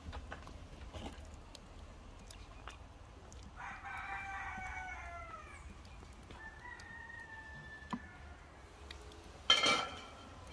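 A rooster crowing once, a drawn-out call slightly falling in pitch, about three and a half seconds in. A brief, loud, sharp sound follows near the end.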